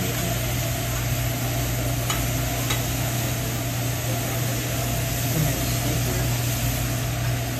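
Chicken, shrimp and steak sizzling on a hot hibachi griddle, with a few light taps and scrapes of a metal spatula, over a steady low hum.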